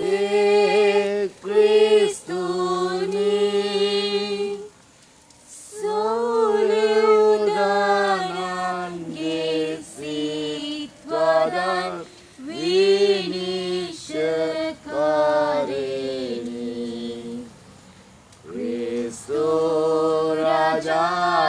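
Unaccompanied choir singing a Christian hymn in long held phrases, with short pauses for breath about five seconds in and again near eighteen seconds.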